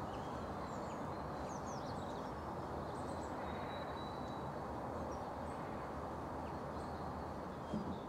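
Steady low outdoor background noise, with faint high chirps and short whistles of small birds scattered through it.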